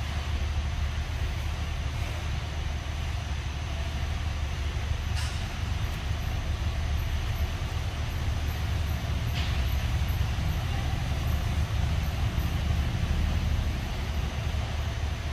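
Steady low rumble throughout, with two short sharp clicks about four seconds apart.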